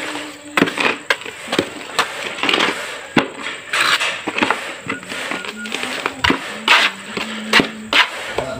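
Concrete blocks being handled and laid: a dozen or so sharp, irregular knocks of block on block, with short scrapes between them.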